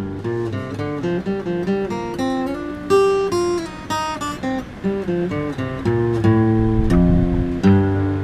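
Background music: an acoustic guitar playing a melody of changing notes.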